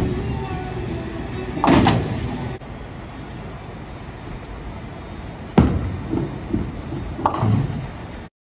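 Bowling alley sounds over a steady rumble of balls and pinsetters: a loud crash about two seconds in, then a sharp thud of a thrown bowling ball landing on the lane just past halfway, with smaller knocks after it. The sound cuts off suddenly near the end.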